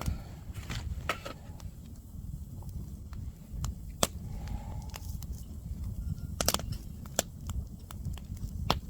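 Wood fire crackling, with scattered sharp pops over a low steady rumble.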